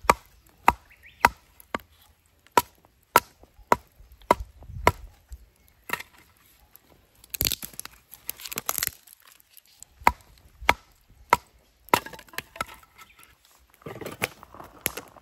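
Resin-rich fatwood tinder stick being split into kindling: sharp wooden knocks, a little under two a second, as a blade is driven down into it, with a stretch of cracking and splintering about halfway, then a few more knocks. Near the end a metal mess tin is handled.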